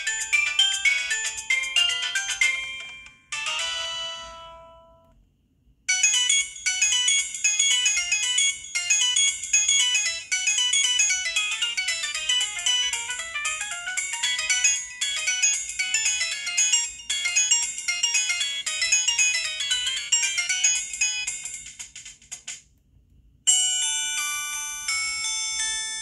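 Samsung SGH-T629 phone ringtones playing one after another. One tune stops about three seconds in and a short chime follows. A long melody then runs from about six seconds to about twenty-two seconds, and another tune begins near the end.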